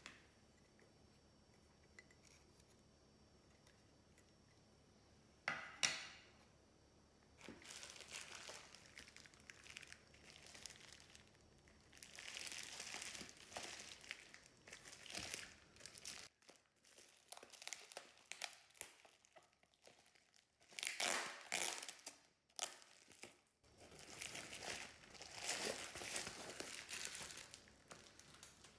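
Plastic packaging, bubble wrap and a thin plastic bag, crinkling and rustling in irregular bursts as it is pulled off a boxed CD player by hand. The first few seconds are near silent, then a sharp rustle comes about six seconds in.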